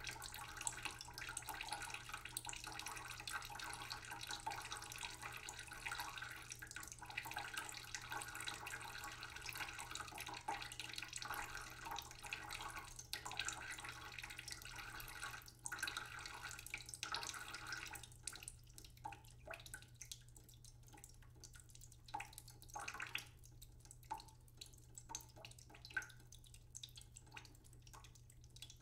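Close-up sounds of soft dough being stirred and kneaded by hand: a dense, wet crackle that thins to scattered soft taps and clicks about two-thirds of the way in.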